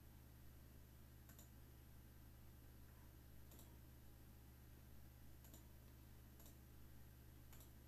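Near silence: room tone with a steady low hum and about five faint clicks, spaced one to two seconds apart.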